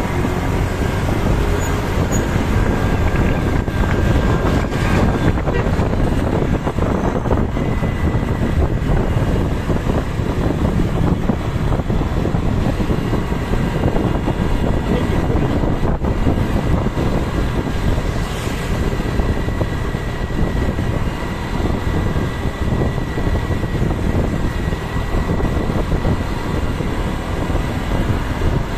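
Steady road-vehicle noise: engine and tyre rumble with a constant level and no horn sounding.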